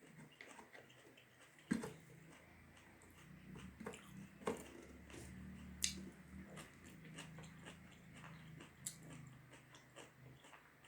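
Close mouth sounds of someone chewing big mouthfuls of rice and curry, with scattered wet clicks and lip smacks.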